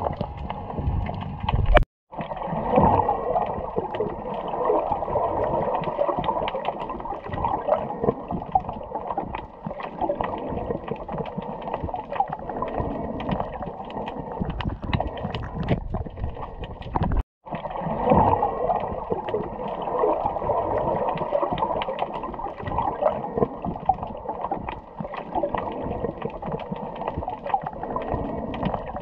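Muffled underwater sound recorded through a camera's waterproof housing: water swishing and gurgling with a dense crackle of small clicks. It cuts out abruptly twice, at about 2 seconds and again around 17 seconds in.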